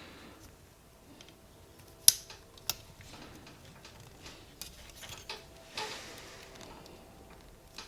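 Hard plastic model-kit parts and tools being handled: two sharp clicks about two seconds in and half a second apart, then lighter ticks and a brief rustle near the end.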